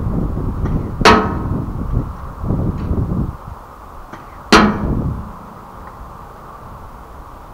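Two airsoft BB hits on a ringing metal target, about three and a half seconds apart, each a sharp clang with a short ring. Each is preceded a fraction of a second earlier by the faint report of the SSG24 airsoft sniper rifle firing from down range. A low rumble runs under the first three seconds.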